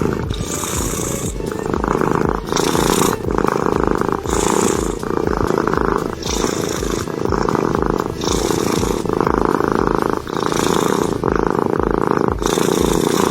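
Cat snoring with a purring rumble. Each breath in and out alternates steadily, about one phase a second.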